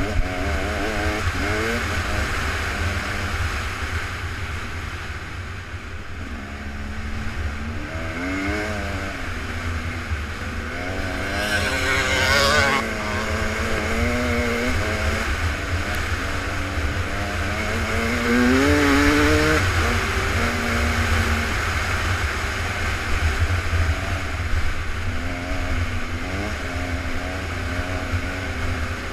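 Engines of several off-road vehicles running and revving, their pitch rising and falling as they work, with a louder, harsher burst about twelve seconds in.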